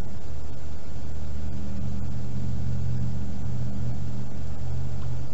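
A motor running with a steady low hum, a little stronger through the middle.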